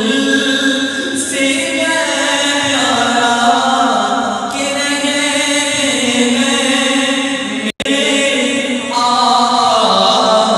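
A naat sung unaccompanied by a male reciter through a microphone and PA system, in long held melodic notes. The sound cuts out for an instant about three quarters of the way through.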